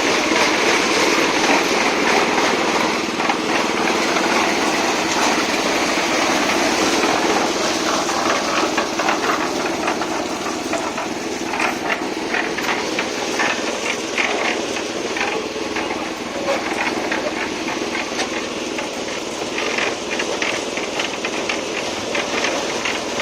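A small engine running steadily during a concrete pour, with a hissing edge. From about ten seconds in, many short clicks and knocks come over it.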